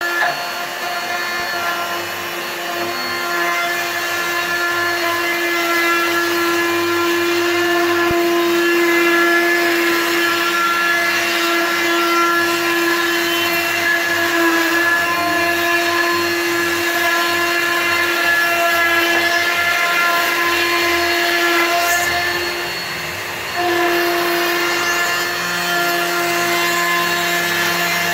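Plunge router running with a steady whine as its bit skims across the face of a long wooden board to flatten it. The sound dips for about a second roughly three-quarters of the way through, then picks up again.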